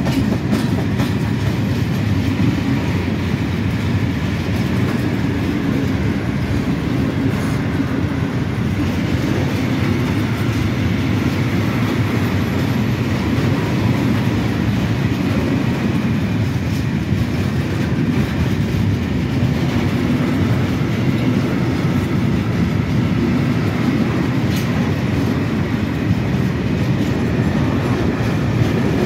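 Freight train of high-sided open wagons passing close by, a steady rumble of wheels on rail with quick, repeated clicks as the wheels cross rail joints.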